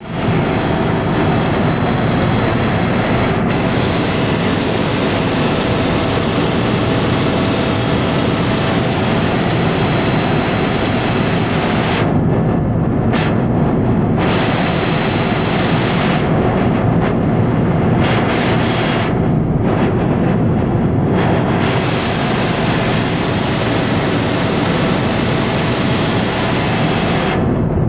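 Helicopter in flight, heard from inside the cabin: a loud, steady drone of engine and rotors.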